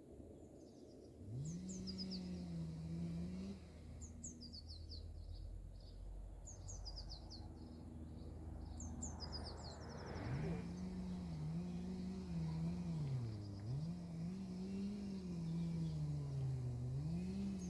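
DS977 electro-mechanical siren sounding during a siren test. It winds up about a second in and holds a low tone, stops about three and a half seconds in, then winds up again about ten seconds in and rises and falls in pitch.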